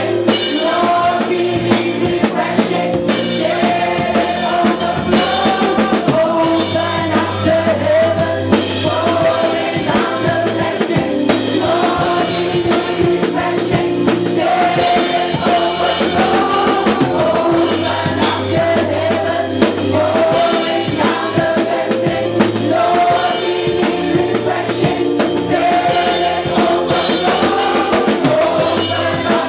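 Gospel worship music: a sung melody carried by voices over a steady drum-kit beat and held bass notes.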